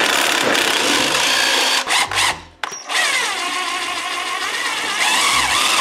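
Cordless drill running in two bursts, unscrewing the cover-plate bolts of a snowmobile primary clutch. The first run lasts about two seconds; after a short pause the second runs about three seconds, its motor pitch wavering.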